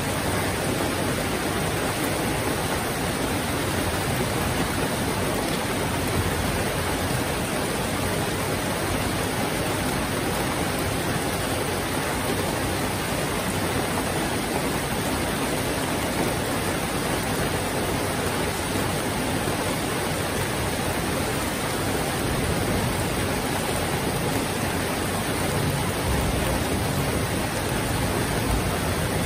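Heavy rain pouring down steadily: a dense, even hiss that holds without a break.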